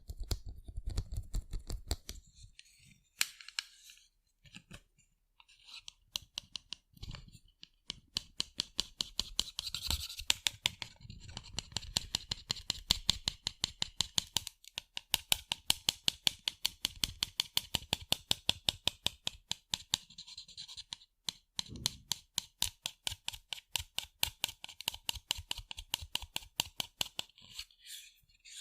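Fingernails tapping on sunglasses: rapid runs of light clicks, several a second, with short pauses between the runs.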